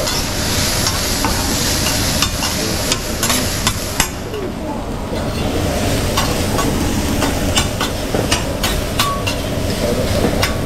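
Fried rice sizzling on a teppanyaki griddle while metal spatulas scrape and clack against the steel plate in quick, irregular taps. The sizzle dies down about four seconds in, leaving the spatula clicks.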